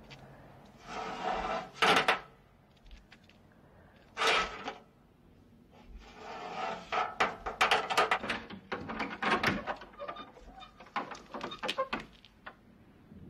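A door being unbarred: wood and metal scraping and knocking. There is a long scrape about a second in that ends in a sharp knock, another short scrape near four seconds, then a quick run of knocks and rattles from about six seconds to near the end.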